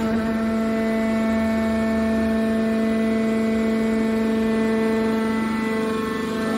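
Scrap steel baler's hydraulic power unit running with a steady hum.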